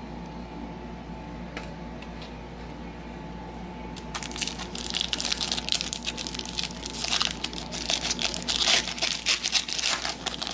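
A trading-card pack's foil wrapper crinkling and tearing as it is opened, a dense irregular crackle starting about four seconds in, after a few seconds of quiet room hum.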